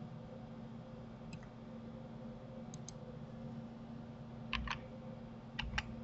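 Clicks of a computer mouse and keyboard: a couple of light single clicks, then two louder pairs of clicks in the second half, over a steady low hum.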